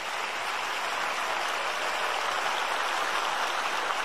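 A large stadium crowd applauding, a steady, even clatter of many hands that holds throughout.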